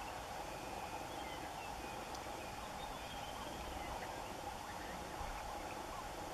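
Steady wetland ambience: an animal chorus holding one constant pitch, with faint short chirping calls scattered through it.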